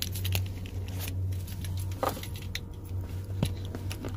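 Keys jingling and clicking at a pickup truck's ignition switch as a gloved hand works the key, with scattered sharp clicks over a low steady hum.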